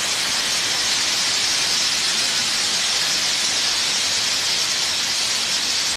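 Steady, even hiss with no changes in level, brightest in the upper range; it cuts off abruptly at the end.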